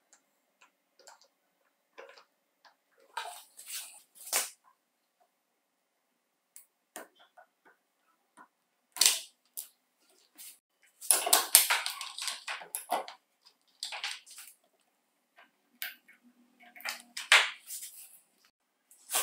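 Metal connector tab being pried and torn off the end of an old lithium-ion battery cell held in a vise: irregular bursts of scraping and crackling, the longest cluster a little past halfway, with a few light clicks and taps before it.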